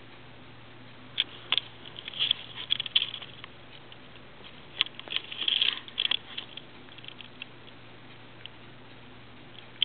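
Rapid, irregular small clicks and crackles in two clusters, one over the first few seconds and one around the middle, with a few scattered ticks afterwards.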